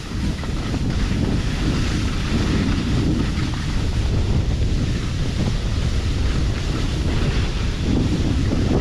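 Wind buffeting a camera microphone while skiing downhill: a steady low rumble with a rushing hiss over it.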